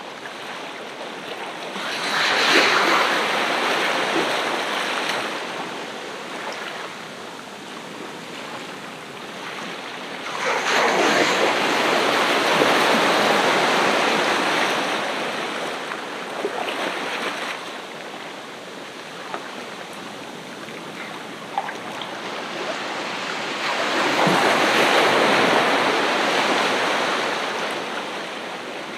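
Ocean surf breaking on a beach: three waves break and wash up, about two, ten and twenty-four seconds in, each rushing for several seconds before easing back to a softer wash.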